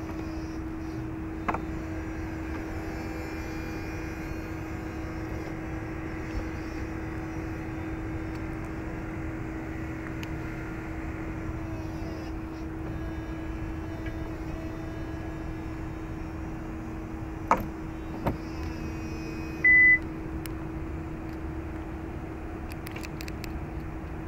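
Chevrolet Corvette Stingray convertible's power soft top folding down: electric motors whirring with slowly shifting pitch over a steady hum. Two clunks come a little past halfway as the tonneau lid closes and latches, followed by a single short, loud, high beep.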